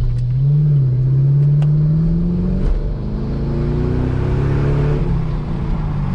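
2010 Chevy Camaro SS 6.2-litre V8 accelerating hard: the revs climb, drop sharply almost three seconds in as it shifts up, climb again, and fall near the end at the next shift.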